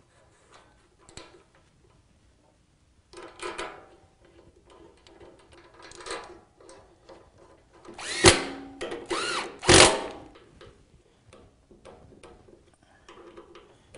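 Handheld power driver spinning in short bursts, the two loudest about eight and ten seconds in, its pitch rising and falling as it speeds up and slows, running in the front brake caliper mounting bolts.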